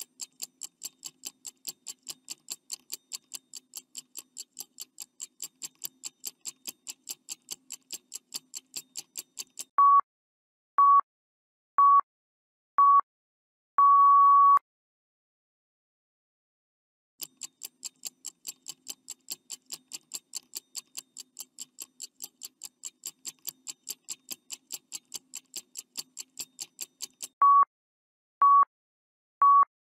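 Countdown timer sound effect: a clock ticking fast and evenly for about ten seconds, then four short beeps a second apart and one longer beep as the time runs out. After a few seconds of silence the ticking starts again, and the short beeps begin once more near the end.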